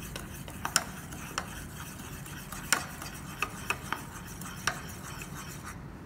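A metal spoon stirring coconut oil with baking powder and salt in a small ceramic bowl. It scrapes steadily, with irregular sharp clinks where the spoon knocks the side of the bowl, and stops near the end.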